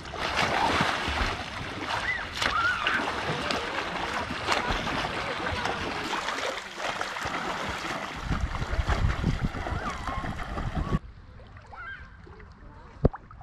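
Lake water splashing and sloshing close to the microphone as someone moves through it in the shallows. About eleven seconds in it gives way to quieter lapping water, with one sharp click near the end.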